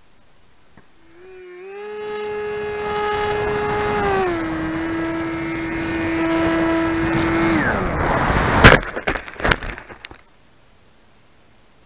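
Electric motor and propeller of a Specter V2 foam flying wing heard from its onboard camera: a steady whine with wind rush, stepping up in pitch and then a little down. The motor winds down and the wing hits the ground with a loud crash and a few tumbling knocks, a crash caused by reversed aileron control.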